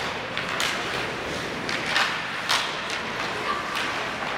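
Ice hockey play in a rink: a string of sharp, irregularly spaced clacks of sticks and puck on the ice and boards, echoing over a steady hiss.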